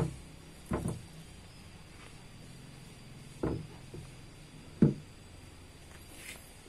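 Dull knocks of a steel motorcycle exhaust, a Kawasaki Ninja R muffler and header pipe, being handled and bumped against wooden planks: four knocks, the loudest about five seconds in.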